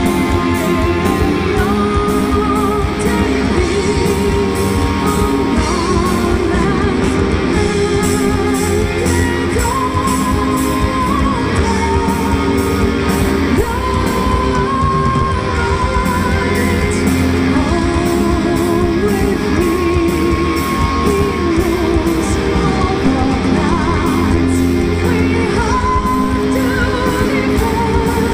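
Symphonic metal band playing live: distorted electric guitars, bass and fast drums under a sung melody, dense and steady.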